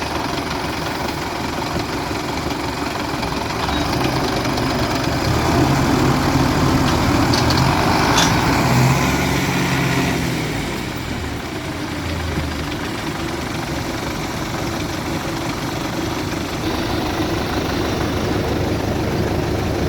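Tractor diesel engines running, the note rising and growing louder for several seconds about a quarter of the way in as they work under load, then easing back to a steadier, lower running sound.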